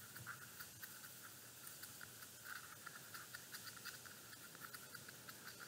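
Faint, rapid little ticks and scrapes of a paintbrush stirring acrylic paint in a well of a plastic palette.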